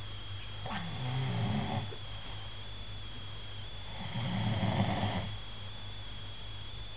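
A person snoring: two long, rasping snoring breaths about three seconds apart. A steady low hum and a thin high whine sit underneath.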